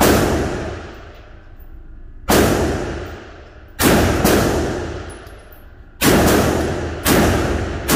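About seven pistol shots from a SIG Sauer P365 Macro 9mm, fired singly at uneven spacing with a quick pair about four seconds in. Each shot rings out in the long echo of an indoor range.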